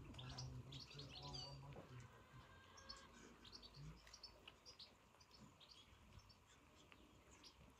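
Faint, busy twittering of small birds. A low steady drone sounds under it for the first two seconds, then stops.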